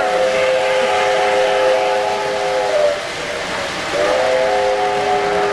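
O-gauge model steam locomotive's whistle sounding a steady chord of several tones. It blows one long blast that ends about three seconds in, then after a second's pause blows again, while the train's wheels run on the three-rail track.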